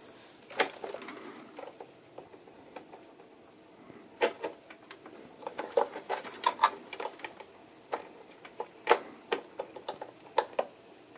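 Irregular light clicks and clatter of small plastic wire connectors and a small screwdriver being handled among the wiring inside an open Hasbro Haslab proton pack's plastic housing. A few sharper ticks stand out about half a second in, around four seconds in, and around nine seconds in.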